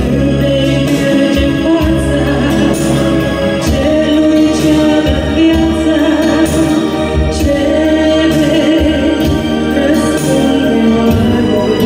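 A woman sings a Romanian Christian song into a handheld microphone over an instrumental accompaniment.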